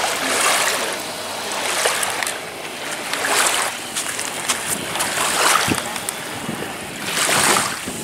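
Small waves washing onto a sandy Black Sea beach: a hiss of surf that swells and fades about every two seconds.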